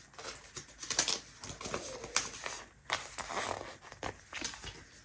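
Paper rustling with light taps and ticks, irregular and close, from a planner's pages and stickers being handled.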